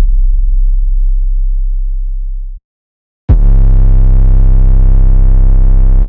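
Two 808 bass kick samples, played one after the other. The first, a deep sustained bass tone, fades and stops about two and a half seconds in. After a short gap a second 808 hits with a sharp attack and a buzzier tone full of overtones, holds steady and cuts off near the end.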